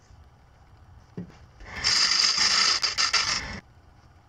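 A hand-held turning tool cutting into a small wooden spindle blank spinning on a wood lathe: a scraping cut lasting about two seconds near the middle, after a light knock about a second in. Between cuts, only the lathe's faint low running sound.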